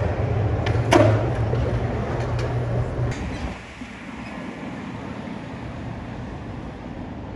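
Steady low rumble of heavy vehicle traffic with a sharp knock about a second in. The rumble drops away about three and a half seconds in, leaving quieter city street background noise.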